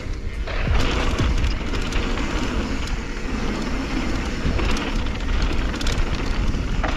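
Propain Spindrift mountain bike rolling fast down a dry, dusty dirt trail: tyres crunching over loose dirt and gravel, with wind noise on the microphone and scattered clicks and rattles from the bike.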